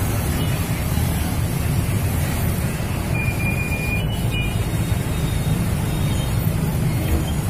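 Street traffic noise from motorcycles and cars idling and creeping in a jam, a steady low rumble. A brief thin high tone comes about three seconds in.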